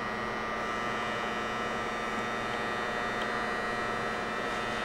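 Steady electrical hum with a thin, high, constant whine over it; no clicks or handling noises stand out.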